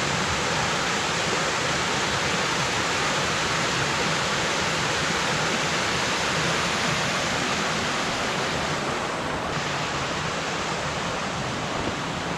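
Creek water rushing steadily, a continuous even rush.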